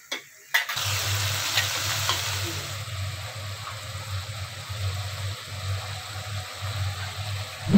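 Thin potato curry boiling and sizzling in an iron karahi, a steady hiss of bubbling over a low hum. A thump near the end.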